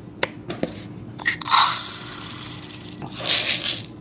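Dry rice and mixed grains poured from a small plastic cup into a plastic colander bowl. A few light clicks are followed by a long rattling hiss of grains, then a second, shorter pour near the end.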